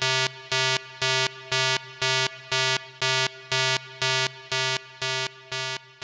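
Electronic synthesizer tone pulsing on and off about twice a second at one steady pitch, each pulse buzzy and bright, growing a little quieter near the end.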